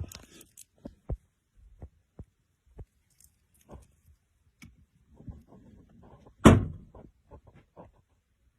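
Scattered soft knocks and taps, with one much louder thump about six and a half seconds in.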